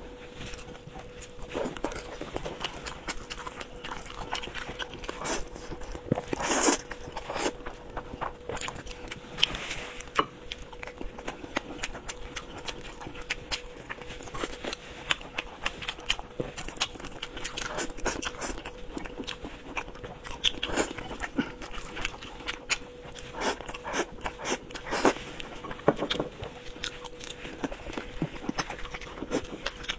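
A person eating spicy instant noodles: slurping and chewing, with many short wet mouth clicks and smacks.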